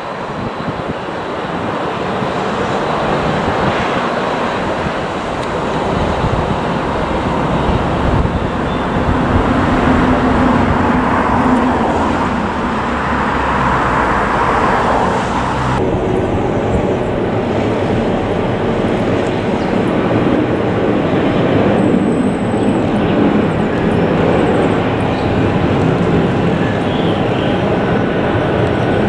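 Jet airliners landing, a steady, loud rush of turbofan engine noise. First an Airbus A319 with IAE V2500 engines on final approach and rolling out, the noise swelling as it touches down. About halfway through it cuts abruptly to an Airbus A321 on its landing roll.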